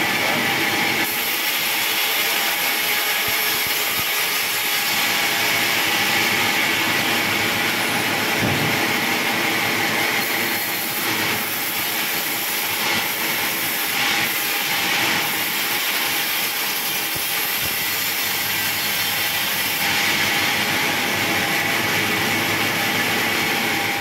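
Sawmill band saw running and cutting through a log, a loud, steady noise with a high tone held in it.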